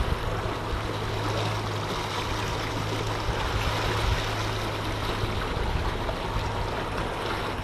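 Water splashing and rushing along a small boat's hull, over the steady low hum of the boat's motor.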